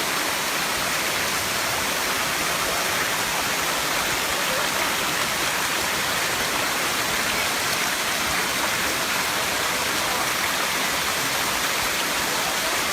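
Waterfall at the seventh tier of Erawan Falls: water cascading over limestone in a steady, even rush.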